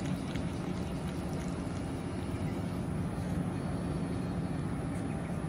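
A steady low mechanical hum that holds an even level throughout.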